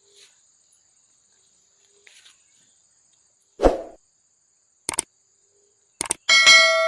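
A dull thump, then a few sharp clicks, and near the end a metal object struck with a clang that rings on in a clear tone and dies away. A faint steady high insect trill runs underneath.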